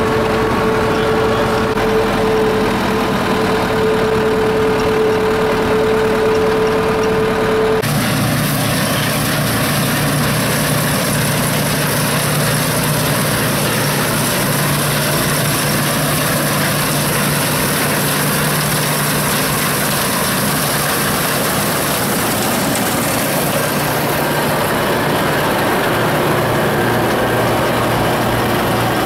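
Engine droning steadily inside a vehicle's cab with a steady whining hum. About eight seconds in it switches to a combine harvester at work cutting rye: its engine and threshing machinery running steadily, with a dense hiss of chaff and chopped straw being thrown out.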